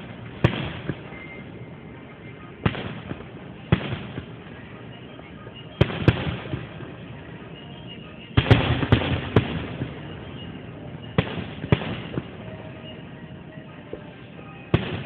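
Aerial firework shells bursting: sharp bangs every second or two, with a quick run of four or five bangs about eight to nine seconds in, each bang trailing off briefly.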